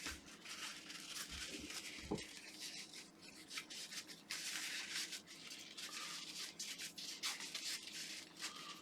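Irregular rubbing and scraping strokes of hands working material around a toothbrush handle; a short, low knock about two seconds in.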